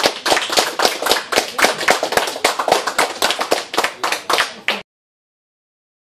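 A small audience applauding a speaker, a dense run of hand claps that cuts off suddenly about three-quarters of the way through.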